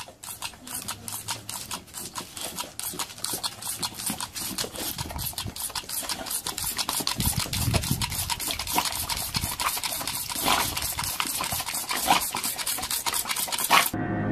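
A fast, even run of sharp spattering clicks, several a second, from a toy water pistol squirting a boxer dog as it snaps and bites at the stream of water. The clicking cuts off suddenly just before the end, and music starts.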